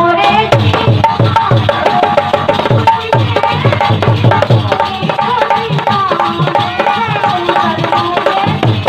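Instrumental break in a folk song: a hand drum beats a fast, steady rhythm under a short repeating melody.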